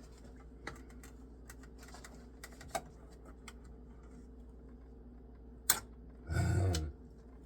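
Scattered light plastic clicks and taps from handling zip ties, then a sharp click and a brief, louder rasping noise near the end, over a low steady electrical hum.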